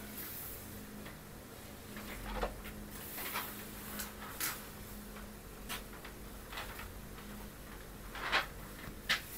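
A gel pen writing by hand on a book page: a scatter of short, scratchy strokes, with two louder ones near the end, over a faint steady hum.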